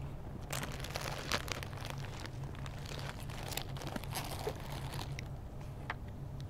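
Crinkling and rustling of a bag being handled: a dense run of quick crackles that stops about five seconds in, over a steady low hum.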